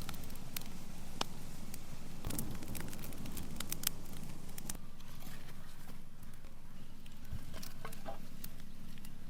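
Scattered light clicks and taps over a steady low background hum.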